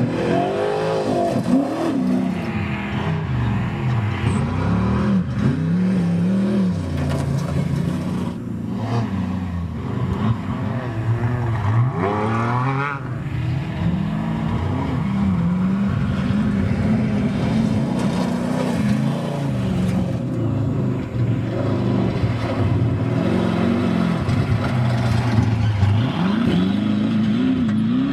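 Off-road desert race trucks' engines running hard as they race past, the pitch climbing and dropping again and again as they rev through the gears and lift off. A sharp rev climbs steeply around twelve seconds in.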